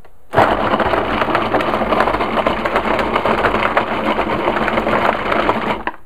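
Food processor with an S blade chopping frozen banana chunks: the motor runs for about five seconds, with the hard frozen pieces knocking rapidly against the blade and bowl, then it stops abruptly near the end. It is a short initial run to break the frozen banana up.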